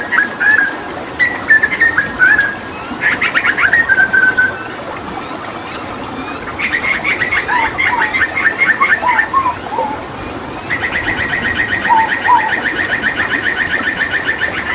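Hooded butcherbird singing: a few short whistled phrases, then fast trills of rapidly repeated notes about halfway through and a long, even rattling trill over the last few seconds. Underneath runs a steady hiss of running water.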